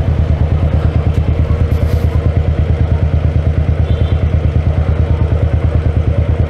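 Motorcycle engine idling close by, a steady, rapid low thumping beat that holds even throughout.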